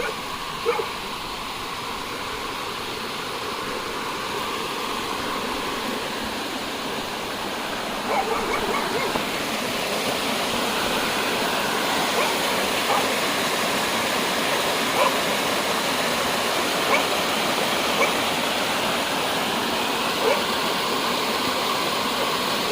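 Small stream rushing over rocks, a steady spread of water noise that grows slightly louder over the first half, with a few short, faint sounds now and then on top of it.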